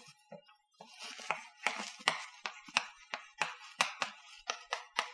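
Chalk writing on a blackboard: a quick run of sharp taps as each stroke lands, with short scratches between them, about two or three taps a second.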